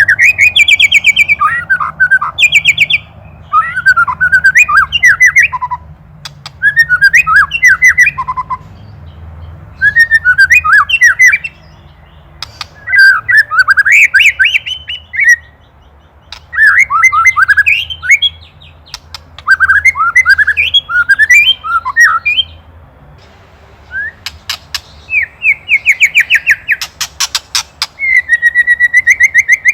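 White-rumped shama singing: bursts of fast, varied whistled and chirping phrases, each lasting two or three seconds, with short pauses between. From about three-quarters of the way in it gives rapid clicking rattles (the 'ketrekan') and then a fast run of the same repeated note.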